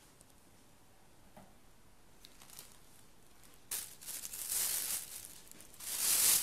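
Thin plastic produce bags crinkling and rustling as a hand rummages through them. The sound comes in two bouts in the second half, the first about a second and a half long and the second shorter, near the end.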